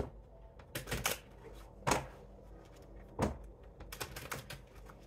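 A deck of oracle cards being shuffled by hand: a series of separate, irregularly spaced sharp card slaps and taps, with a quick run of them about four seconds in.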